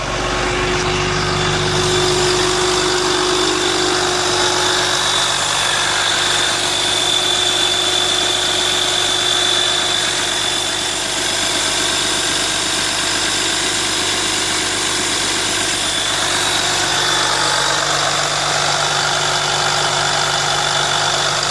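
VMAC VR70 under-hood air compressor running off the truck engine. A loud, steady hiss with a steady high whine comes in abruptly at the start, over the engine's idle.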